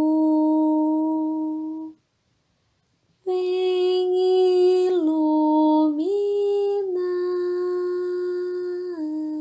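A woman sings a slow, gentle children's candle-lighting song in long held notes with no accompaniment. She stops for about a second early on, then steps slowly between a few notes.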